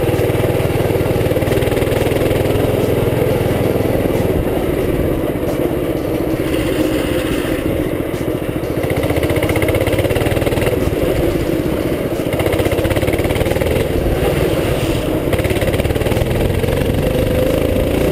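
Mini bike's small single-cylinder engine running steadily as the bike rides a dirt trail.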